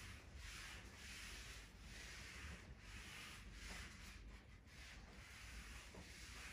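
Board being wiped clean with an eraser: faint, repeated rubbing strokes, about two a second.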